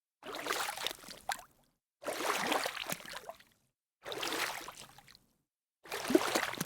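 Water splashing and rushing in four short snatches of about a second each, each cut off abruptly into dead silence.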